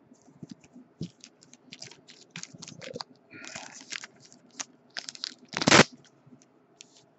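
Stiff plastic card holder being handled and flexed: irregular crackling clicks and snaps, with one much louder crack late on.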